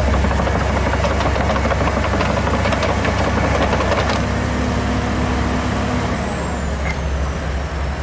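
Komatsu PC200-8 excavator's diesel engine idling with a steady low rumble, with light metallic clicks in the first half and a short steady hum from about four seconds in.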